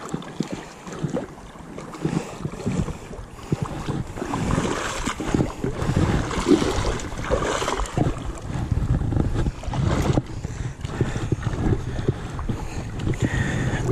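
River water sloshing and splashing around a camera held at the water's surface, mixed with wind rushing over the microphone, in irregular swells with many small low thuds.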